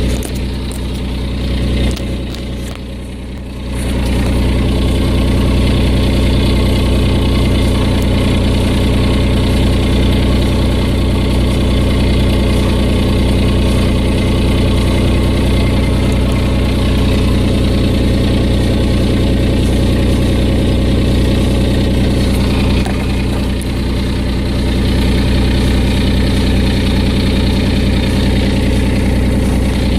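Car engine idling steadily with an exhaust leak; it gets louder about four seconds in.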